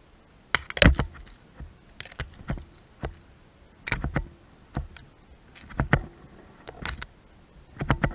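A series of irregular knocks and scuffs, about one a second.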